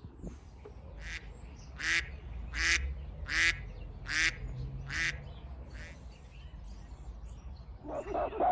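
A bird giving six harsh calls in a row, evenly spaced about three-quarters of a second apart, then falling silent.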